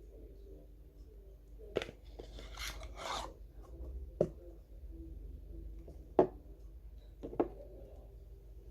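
Packaging and product containers being handled at close range: a brief crinkly rustle two to three seconds in, and four sharp clicks or taps spread through, the third the loudest.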